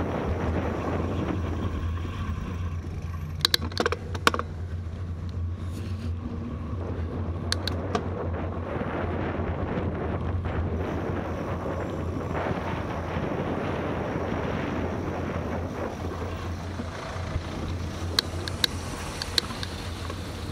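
Wind rushing over the microphone and road noise from a bicycle riding along a city street, a steady noise. Broken by a few short sharp clicks about four seconds in, around eight seconds, and near the end.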